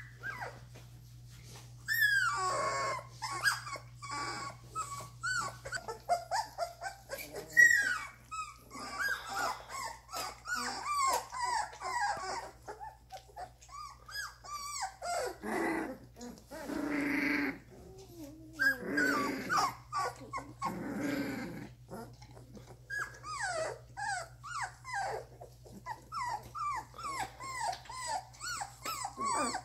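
Two-and-a-half-week-old Doberman puppies whining and whimpering in many short, high cries that fall in pitch, with a few lower, rougher growls about halfway through.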